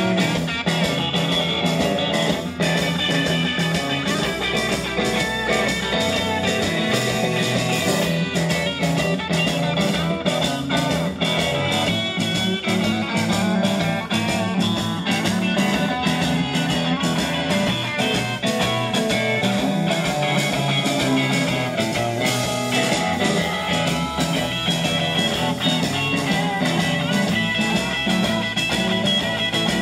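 Live blues-rock band playing: electric guitars over upright double bass and a drum kit, at a steady loud level with regular drum beats.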